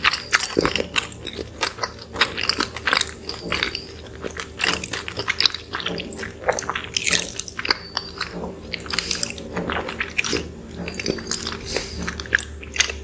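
Close-miked eating sounds: soft, fluffy cinnamon rolls being bitten and chewed, with many quick, irregular mouth clicks and smacks.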